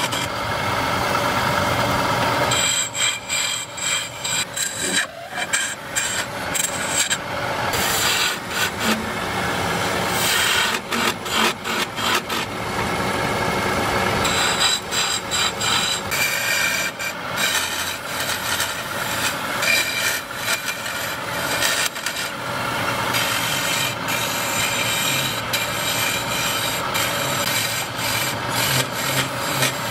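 Wood lathe turning: a hand-held turning chisel cutting a spinning wooden spindle, a continuous scraping rasp of shavings being peeled off, rising and falling in loudness as the blade is worked along the piece.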